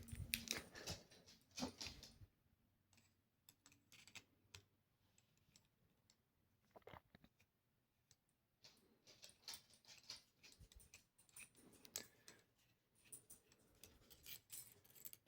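Faint, scattered small clicks and ticks of a small Phillips screwdriver and metal pen parts being handled while a tiny screw inside a bolt-action pen is backed out.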